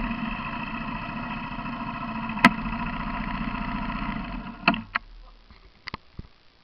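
Quad bike (ATV) engine idling steadily, with one sharp click about two and a half seconds in. About three-quarters of the way through the engine is switched off, and a few light clicks follow.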